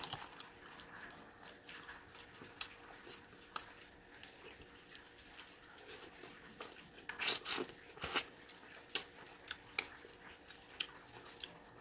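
Close-up eating sounds: wet smacks and clicks of a mouth sucking and chewing meat off an oxtail bone, with spoonfuls of soup. The sounds come scattered, with a louder cluster about seven seconds in.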